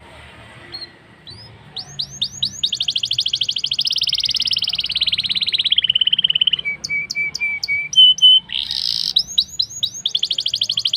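Blackthroat (black-throated canary) singing a long, fast song: a rapid trill of falling notes and rolls, a few repeated short notes in the middle, a brief break about eight and a half seconds in, then the fast trilling starts again.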